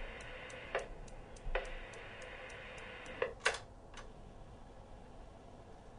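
Desk Newton's cradle clacking: a steady train of sharp metal ticks, about three a second. A few louder clicks that ring briefly stand out, near one second in and again around three seconds.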